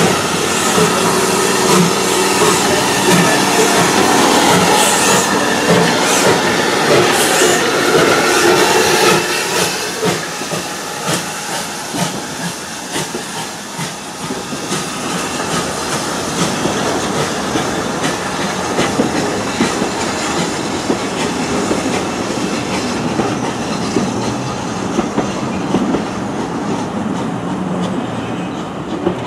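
A steam train moving off slowly behind a GWR Collett goods 0-6-0 tender locomotive. The engine and tender are louder for the first nine seconds or so, then the carriages roll past with a steady clatter of wheels over the rail joints.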